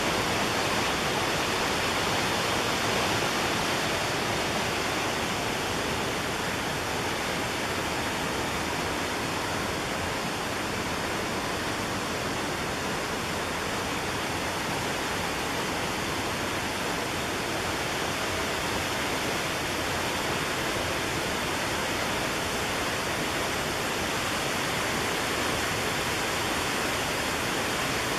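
Rushing whitewater of the McKenzie River, a steady, unbroken roar of water pouring over rocks and falls.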